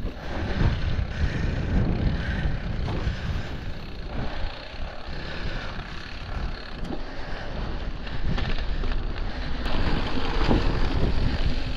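Mountain bike riding over a rough, bumpy pasture track: tyres on the ground, the bike rattling and knocking continuously over the bumps. Wind buffets the microphone throughout.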